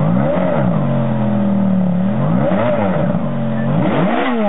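Supercar engine revved in three quick throttle blips, each rising sharply in pitch and dropping back to a steady lower note between them.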